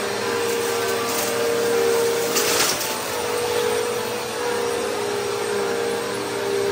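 Upright vacuum cleaner running steadily while pushed over carpet, picking up dumped dust and debris. Its motor hum wavers slightly in pitch, with a brief louder hiss about two and a half seconds in.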